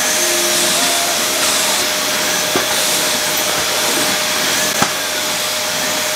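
Canister vacuum cleaner running steadily as the floor is hoovered, with two light knocks partway through.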